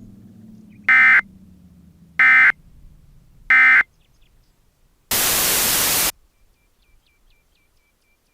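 Three short bursts of Emergency Alert System digital data, the end-of-message (EOM) code that closes an alert, evenly spaced about a second apart. They are followed by about a second of loud static hiss.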